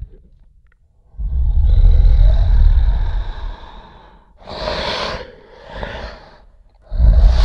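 Monster creature sound effect, mixed from Godzilla roars and frog sounds: after a brief pause, one long, deep, loud roar. Two shorter breathy bursts follow, then another loud roar starts near the end.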